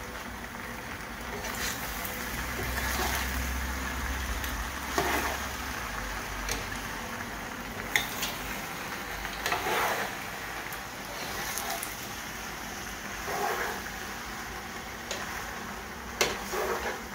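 A long metal spoon stirring penne in a large nonstick pot on the burner, scraping and clinking against the pot every second or two, over a steady frying sizzle.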